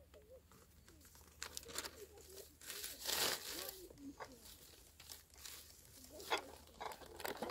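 Faint crinkling and rustling of something being handled, loudest about three seconds in.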